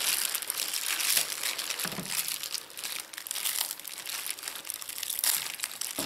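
Clear plastic wrapping crinkling irregularly as hands pull it off a handheld vacuum cleaner's coiled power cord.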